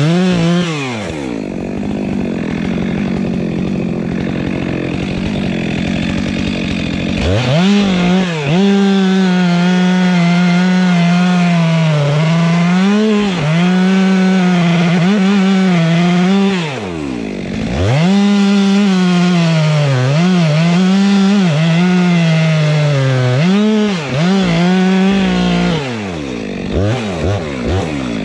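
Petrol chainsaw cutting into a tree trunk. It runs lower and rougher for the first several seconds, then is revved to full throttle, its pitch sagging under load and recovering again and again. It backs off the throttle briefly about two-thirds of the way through and again near the end.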